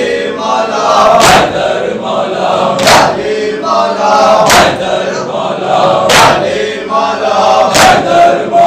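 A group of men chanting together while beating their chests in unison (matam). A loud collective slap of hands on chests lands about every second and a half, five times, with the chant carrying on between the strikes.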